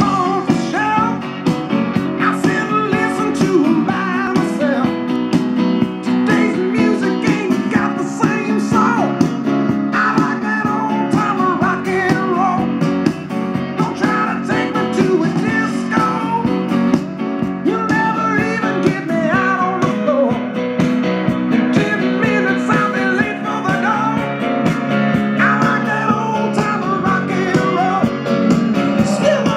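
A song with guitar and singing playing from a Marantz 2385 stereo receiver through a small loudspeaker.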